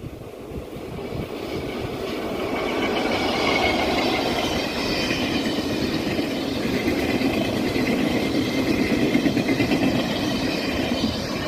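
A locomotive-hauled train of Chu-Kuang passenger coaches rolling past on the track. The wheel-on-rail noise builds over the first few seconds, stays loud while the coaches go by, and eases off near the end.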